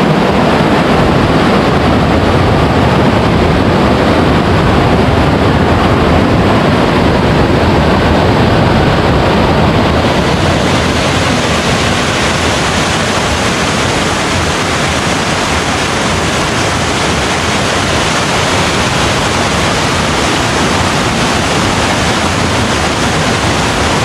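Fast stream water rushing and cascading over sandstone rocks in small falls, loud and close to the microphone. The sound is a steady, even rush that turns brighter and hissier about ten seconds in.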